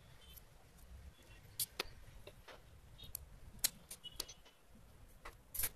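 Irregular small clicks and light taps of cylindrical laptop battery cells and their metal connecting strips being handled, pulled apart and set down on a hard tiled floor.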